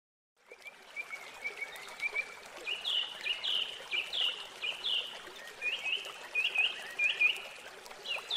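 A small songbird singing a string of quick chirps, then louder, falling notes repeated about every half-second, over the steady trickle of water running into a garden pond. The sound starts about half a second in.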